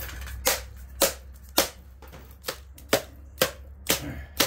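A hammer striking the metal of a scrap transformer, about eight blows at roughly two a second, each with a short metallic ring.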